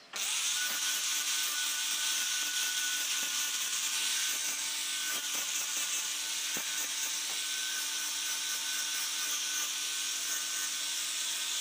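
Electric angle grinder switched on, spinning up in pitch, then running with a steady whine as its abrasive disc grinds the end of a round steel pipe, throwing sparks.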